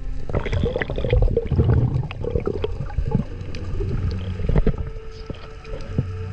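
Muffled underwater sound during a freedive: water rushing past the camera, with low rumbling and scattered sharp clicks and knocks.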